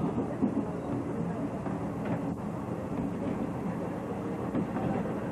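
Tokyu 8000-series electric train running along the track, heard from inside its front cab: a steady rumble of wheels and running gear.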